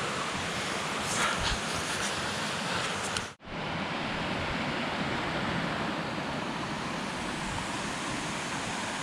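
Steady rush of a mountain stream cascading over rocks. It cuts out for an instant a little over three seconds in, then carries on as before.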